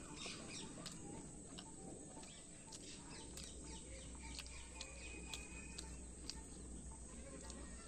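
Birds chirping faintly in the background, with scattered small clicks.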